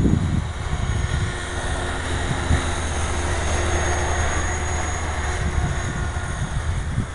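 Steady, distant drone of a small aircraft's engine flying overhead.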